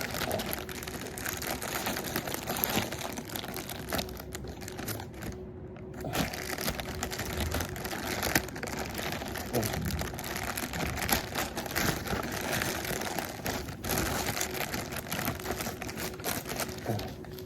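Hands working at a shipping package to open it: crinkling and rustling packaging material with scattered sharp clicks and crackles, pausing briefly a few times.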